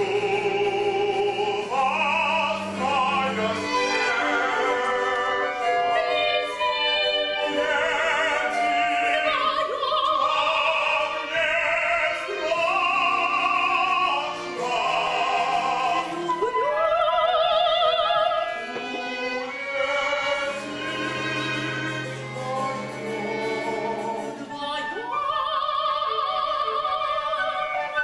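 Live operatic singing: a high female voice holding long notes with wide vibrato, accompanied by a small instrumental ensemble with sustained low notes.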